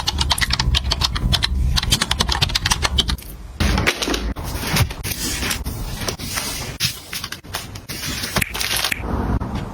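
Rapid clicking and clattering of small hard items being handled, dense for about the first three seconds, then sparser knocks and rustling.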